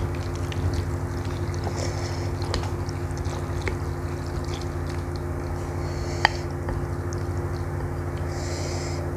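Chopsticks and a wooden spoon stirring and lifting instant noodles and meatballs in soup in a ceramic bowl: scattered light clicks against the bowl, one sharper about six seconds in, and soft wet noodle sounds, over a steady low hum.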